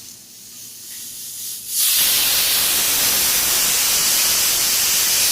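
Pressure cooker whistle: a faint hiss, then about two seconds in a loud, steady rush of steam as the weight lifts. It is the cooker's first whistle, the sign that it has come up to pressure.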